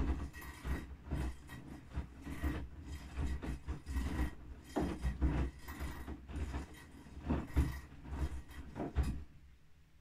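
Bosch front-loading washing machine drum turning in the wash cycle: laundry tumbling and water sloshing with irregular low thuds. The drum stops about nine seconds in, leaving a faint hum.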